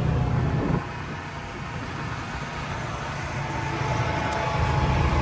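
Polaris RZR side-by-side's engine heard from its seat while driving: it runs under throttle, drops to a quieter coast about a second in, then picks up again near the end.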